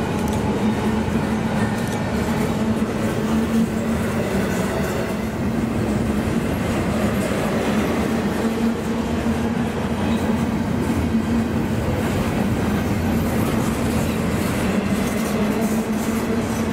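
Double-stack intermodal container train rolling past: a steady rumble of steel wheels on rail, with a steady low hum underneath.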